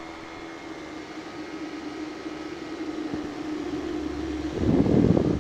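Powered paraglider trike's engine and propeller droning steadily in flight, with a louder rushing burst of wind noise on the microphone about four and a half seconds in.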